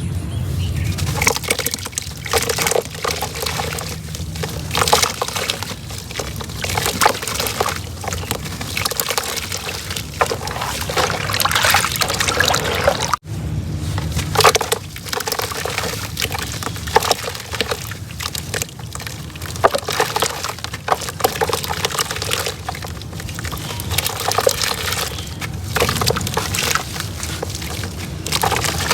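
Soft, slightly damp reused cement being crumbled: a dense run of small crunches and crackles with crumbs pattering down, with one brief break about 13 seconds in.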